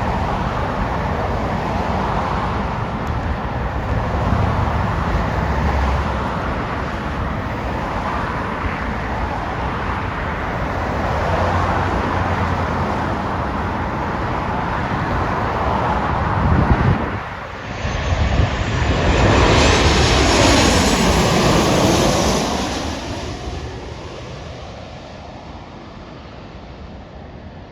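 Jet airliner engines: a steady roar that swells to its loudest as the aircraft passes low overhead, with a sweeping shift in pitch, then fades away over the last few seconds.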